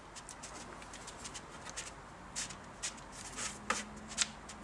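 Faint soft rustling and a few light clicks as fingers pinch and fold an empanada pastry disc against parchment paper.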